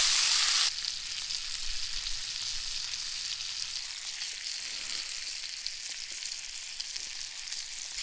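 Trout and grated potato frying in butter in a cast-iron skillet over a campfire: a steady sizzle, loud at first, then dropping suddenly less than a second in to a quieter, even hiss.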